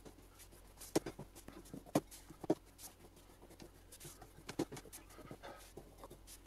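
A rolling pin rolling over a sheet of dough while riding on wooden guide strips, with scattered light knocks and clicks as it meets the strips and the countertop. Faint overall.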